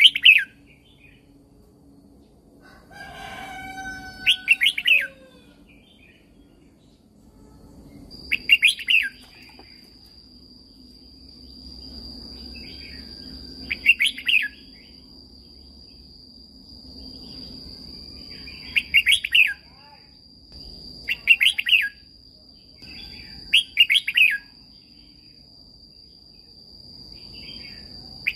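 Red-whiskered bulbul singing short, quick warbled phrases, one every few seconds. A steady thin high tone runs under the song from about a third of the way in.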